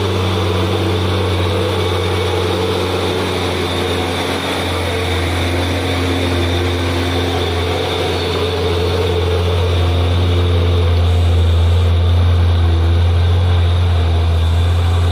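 Hino 500 dump truck's diesel engine pulling hard uphill under load, a steady low drone that grows a little louder in the second half.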